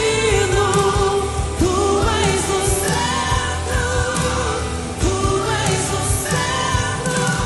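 A woman singing a gospel praise song, holding long notes that slide up into pitch at their start, over an instrumental backing with a steady beat.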